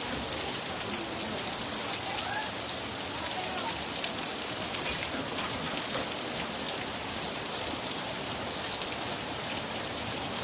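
Heavy rain falling steadily, a constant hiss with scattered sharper drop impacts.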